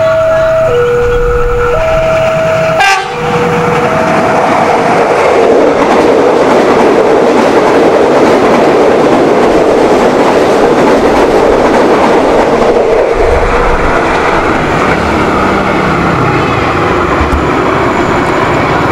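A level-crossing warning alarm sounds two alternating tones, switching about once a second, and is swamped after a few seconds as an electric commuter train (KRL) passes close by with a loud, steady rumble and wheel clatter.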